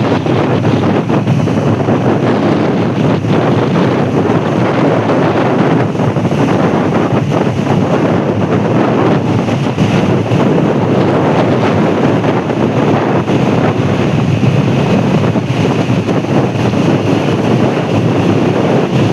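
Steady wind rush on the microphone mixed with road traffic noise, with no horn sounding.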